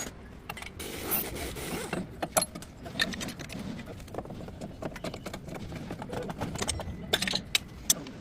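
Metal clinks, rattles and knocks from tools and brake parts being handled during front brake work, with a short hiss about a second in.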